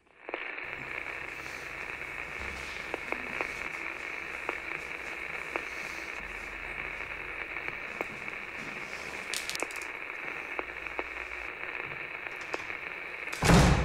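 Steady hiss with faint scattered crackles and clicks, like radio static, and a short loud noise near the end.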